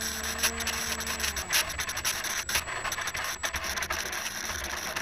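Parkzone Icon A5 foam RC plane's electric motor and propeller humming at a low steady pitch, then winding down and stopping about a second and a half in. Crackly scratching and rubbing noise runs throughout.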